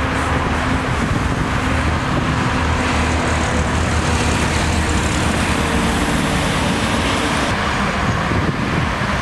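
Steady noise of road traffic, an even, unbroken wash of sound with no single vehicle standing out.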